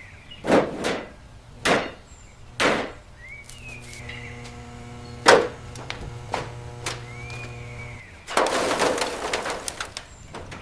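A series of sharp knocks about a second apart, four in all, with short squeaky tones between them, then a rough hissing noise lasting about two seconds near the end.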